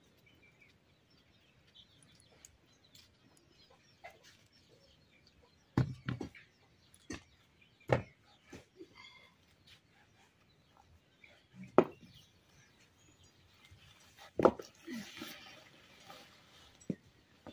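Bricks set down one at a time on hard ground, several sharp knocks at uneven intervals, then a woven plastic sack rustling as it is handled near the end. Birds chirp faintly behind.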